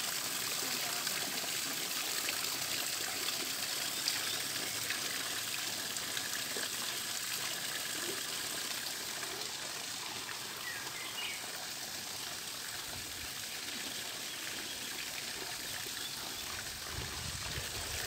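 Steady rush of running stream water, easing slightly in the second half.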